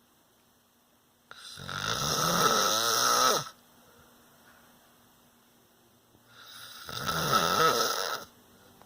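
A man snoring in his sleep: two long, loud snores about five seconds apart, each lasting about two seconds.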